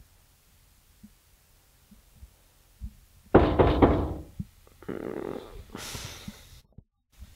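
Loud, rapid knocking, a quick run of blows on a door about three seconds in, followed by a softer rustling noise.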